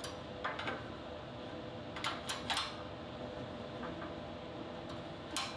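Steady hum with a few short metallic clicks and knocks, a small cluster about two seconds in and one more near the end, from working a shop press to try to break a rust-seized bolt stub free of an engine mount sleeve.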